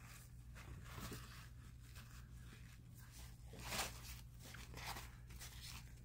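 Paper towel rustling and scraping faintly against a Case Trapper pocketknife as excess oil is wiped out of it, with one louder rustle a little past halfway.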